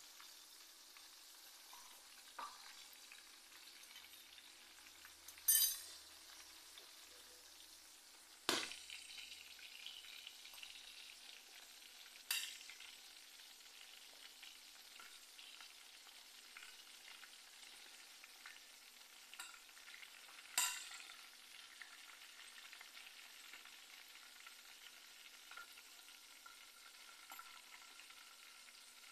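Hot oil sizzling steadily around potato fries and chicken nuggets frying in a pan. Four times it flares suddenly louder and dies away over a second or so, the second flare starting with a sharp knock.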